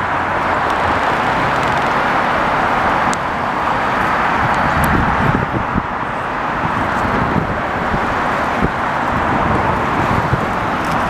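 Steady rush of multi-lane highway traffic, the tyres and engines of cars and a truck passing continuously.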